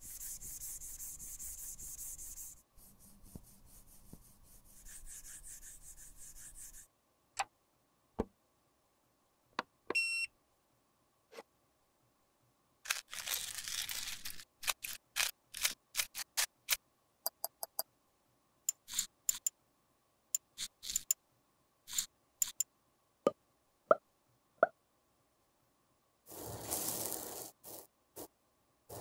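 Close-up handling sounds of eyeshadow being repaired. Rubbing and scraping for the first several seconds, then a long run of small sharp clicks and taps as pink eyeshadow powder is crushed in a small plastic cup, and a short scrape near the end.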